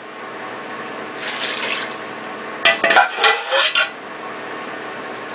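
Liquid pouring and trickling through a cone strainer and nut bag into a stainless steel pot, with metal pots knocking and clattering about three seconds in.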